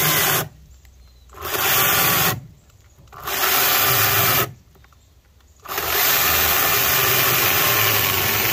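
Greenworks GS110 battery top-handle chainsaw cutting wood, cutting out suddenly three times and starting up again about a second later each time, then running steadily through the second half. The saw is stalling under light cutting load, a fault the owner cannot explain.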